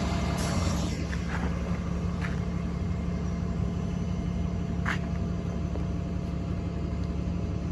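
Train running steadily with a low rumble and a steady hum, with a few faint clicks.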